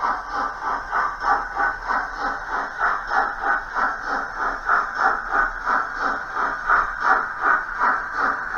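Model steam locomotive's sound unit playing a steady rhythm of steam chuffs, about three a second, as the engine moves slowly into the station.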